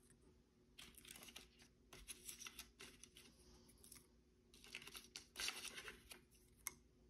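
Faint rustling and light scraping of small cardstock word-strip embellishments being handled and picked up one by one, coming in short spells several times.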